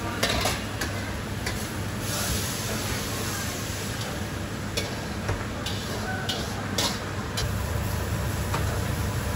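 Stir-frying in a wok over a high-flame wok burner: food sizzling, and a metal ladle scraping and clanking against the wok several times, over a steady low roar. The sizzle swells about two seconds in.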